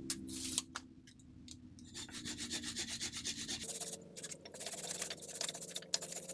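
Handsaw cutting a dry tree branch in quick back-and-forth strokes, starting about two seconds in. Before that, a few sharp clicks.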